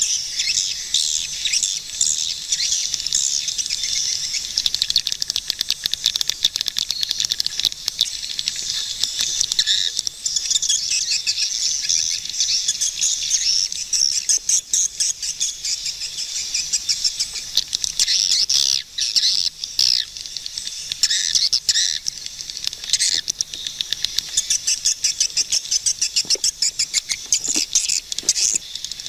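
Swiftlets calling: a dense, unbroken chatter of high-pitched chirps and rapid clicking twitters.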